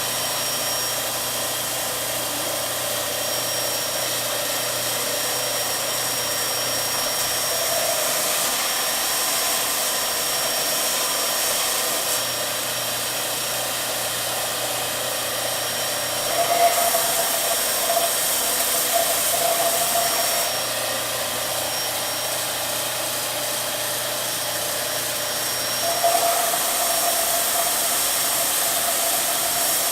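Electric sander running steadily on wood, trimming a slightly too-tight friction-fit piece. The sound grows louder and rougher from about 16 to 21 seconds and again from about 26 seconds.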